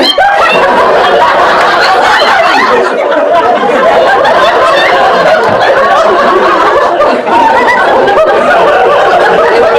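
Audience laughing loudly and without a break, many voices at once.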